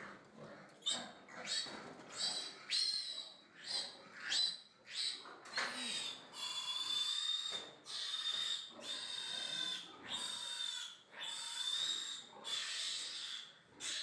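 A piglet squealing over and over while held belly-up in a castration holder. It begins with short, high-pitched squeals, and from about halfway through these give way to longer squeals of about a second each, following one another with hardly a break.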